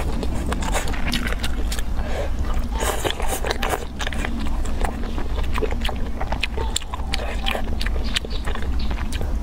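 Close-miked chewing of a person eating, with many short clicks from the mouth and food, over a steady low hum.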